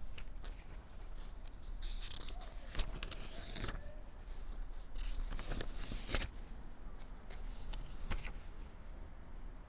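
Irregular clicks and short rustling scrapes, like handling noise, over a steady low hum.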